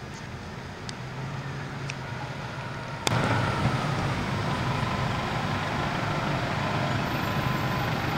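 Transit bus's diesel engine running at a rail crossing, a low steady rumble that turns suddenly louder about three seconds in and stays loud.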